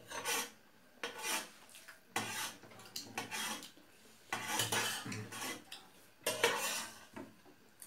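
Spoons scraping and clinking against metal plates as people scoop up food, in short irregular strokes about once a second.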